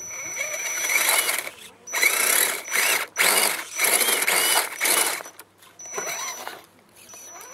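RC scale rock crawler's motor and gearbox whining in a series of short throttle bursts as it climbs over a rock. The pitch rises and falls with each burst.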